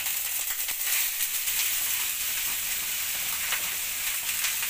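Chopped sisig meat frying in hot oil in a frying pan over a gas burner: a steady, crackling sizzle that grows louder about a second in.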